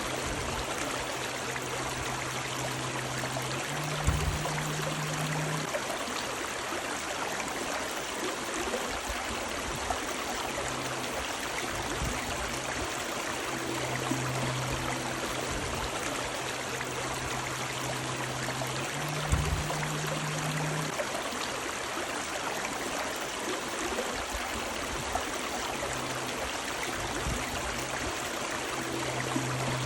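Running river water rushing steadily. Under it a low hum comes and goes, with a short thump about four seconds in and again about nineteen seconds in.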